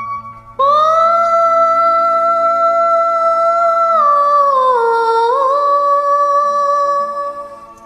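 Karaoke backing track of a Hindi film song playing its melodic opening: a long held note, then a step down with a little turn and another held note that fades away near the end.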